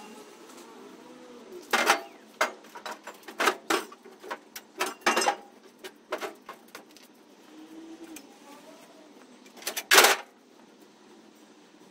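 Scrap metal pieces clanking and knocking as they are handled and dropped, in irregular clusters of sharp hits, the loudest about ten seconds in.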